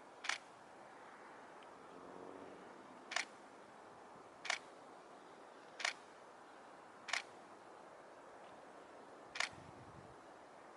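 Camera shutter clicking six times, single sharp clicks at uneven intervals of one to two seconds, over a faint steady background hiss.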